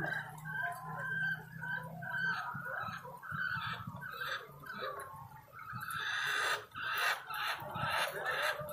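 Chickens clucking, with a quicker run of repeated clucks in the second half.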